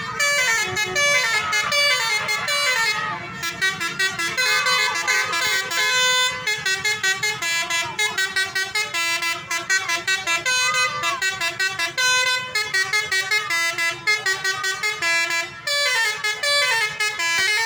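Multi-tone telolet horns of two buses, sounding in fast runs of short musical notes. There are brief pauses about 3 s and 16 s in.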